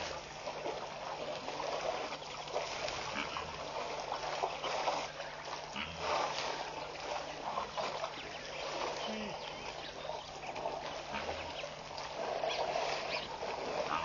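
African elephants drinking at a waterhole: water splashing and trickling as they suck it up in their trunks and pour it into their mouths. A steady low hum runs underneath.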